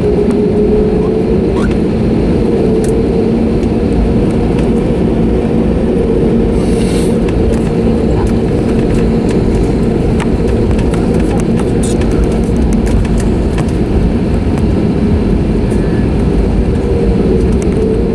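Steady cabin rumble and drone inside an Airbus A320neo on the ground after landing. The drone rises slightly in pitch a second or two in.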